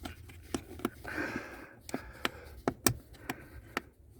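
Sharp plastic clicks and handling rustle, about eight scattered clicks, as the electrical connector is unplugged from the heater blower motor under the dashboard of a Volkswagen Polo sedan.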